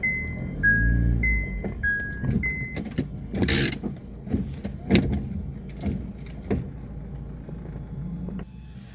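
An electronic two-note beep alternating between a lower and a higher tone about every 0.6 s, stopping about two and a half seconds in, with a low rumble under it. Then a short rush of noise and a run of knocks and thumps.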